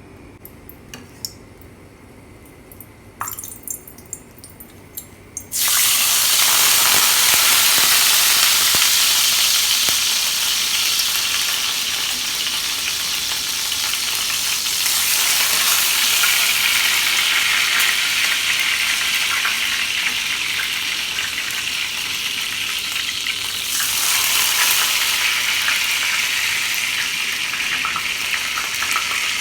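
Hot cooking oil sizzling loudly on an adobo-marinated whole chicken being deep-fried to crisp its skin. A few light clicks, then the sizzle starts suddenly about five seconds in and keeps going, swelling again near the end.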